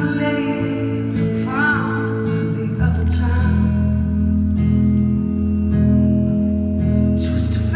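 Live band music: electric guitar over sustained low notes, with a short sung phrase from the female singer about a second and a half in. Near three seconds in the low accompaniment drops to a deeper note and holds.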